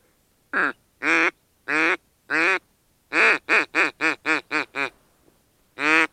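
Duck quacking in the mallard hen pattern. Four drawn-out, loud quacks are followed by a fast run of seven shorter quacks, then one more quack near the end.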